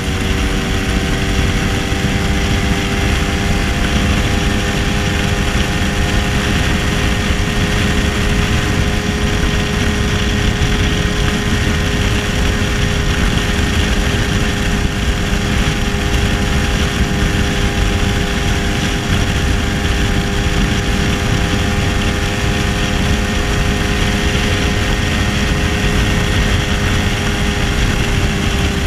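1966 Lambretta SX 225 Mugello scooter's single-cylinder two-stroke engine running at a steady cruise, its pitch climbing slightly in the first couple of seconds and then holding, over a constant rush of wind and road noise.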